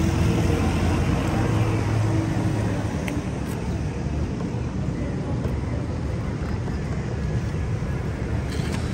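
Steady street noise of motor traffic, with the hum of engines in the first few seconds, then an even background rumble.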